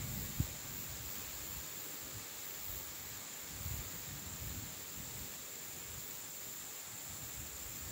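Steady background hiss with a constant high-pitched whine, broken by a short sharp low thump just after the start and a softer low bump about halfway through.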